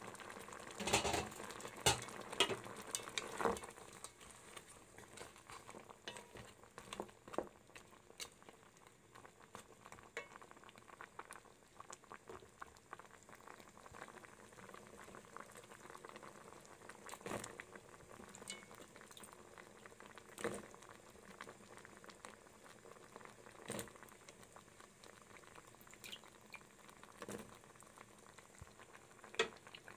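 Coconut milk with shrimp boiling in a pot, a faint steady bubbling. There are several louder knocks and scrapes in the first few seconds and single clicks now and then after that.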